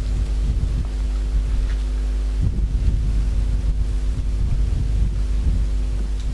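Wind buffeting the microphone: a loud, uneven low rumble, over a faint steady hum.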